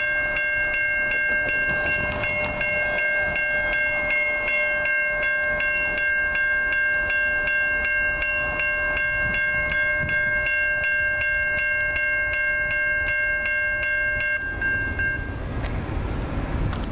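Railroad grade crossing warning bell ringing with rapid repeated dings while the crossing signals are active. It stops about fourteen seconds in. A steady low rumble runs underneath.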